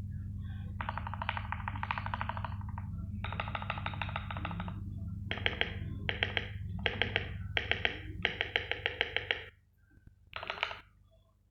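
Typing on an Akko 3084 v2 mechanical keyboard with lubed Akko CS Rose Red linear switches and PBT double-shot keycaps: fast runs of keystrokes, then a string of short flurries of clacks. A steady low hum under it stops about nine and a half seconds in, just before one last short flurry.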